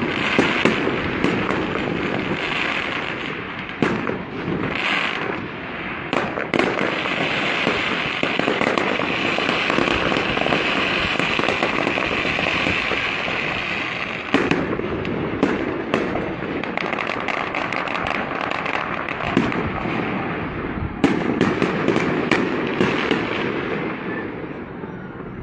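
Fireworks going off: a dense, continuous crackling peppered with many sharp bangs, with heavier clusters of reports about midway and again later. It tails off near the end.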